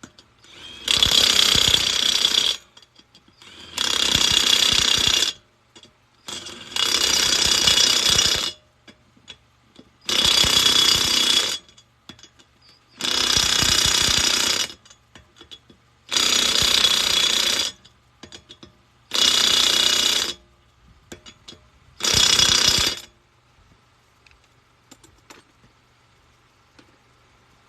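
Impact wrench hammering in eight bursts of a second or two each, with short pauses between, driving the lug nuts onto the spare wheel.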